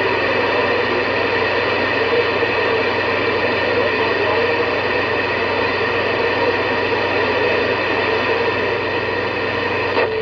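CB radio speaker putting out a steady rush of static with a low hum underneath.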